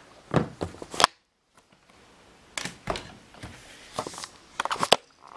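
Camera handling noise: bumps and knocks as the camera is carried and set down on a wooden floor, with the sound cutting out briefly about a second in. Later come scattered light taps and a quick cluster of clicks as a bare foot moves around a glass bathroom scale.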